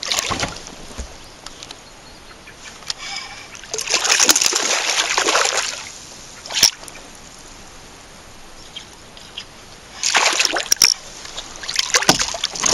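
Hooked largemouth bass thrashing at the water's surface. Splashes come in bursts: about four seconds in, a short sharp one near seven seconds, and again from about ten seconds as the fish is brought alongside the kayak.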